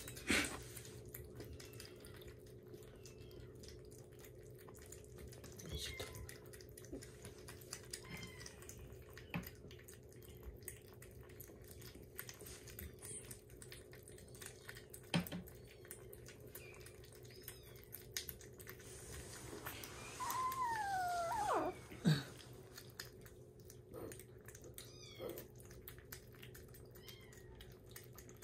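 Young kittens eating soft weaning food, with small wet lapping and licking clicks over a steady low hum. About two-thirds of the way in, one kitten gives a short cry that falls in pitch, with a hiss-like rasp: a small angry protest while eating.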